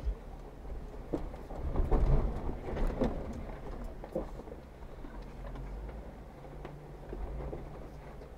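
Jeep Wrangler Rubicon engine running low and steady while crawling a rocky trail, with a cluster of knocks and clunks from the tires and suspension on rock between about one and four seconds in.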